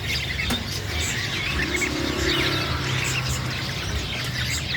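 Crucukan bird calling: quick, repeated short chirps and twitters, with a steady low hum underneath.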